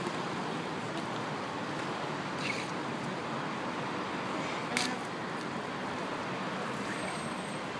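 Steady city traffic hum with a couple of sharp clacks of the guards' hobnailed tsarouchia clogs striking the marble paving as they march slowly in step, the loudest about five seconds in.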